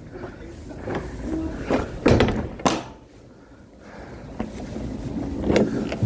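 Clunks and knocks of handling at a box truck's cargo body: two sharp knocks about two seconds in, a few lighter clicks near the end, over a steady street rumble.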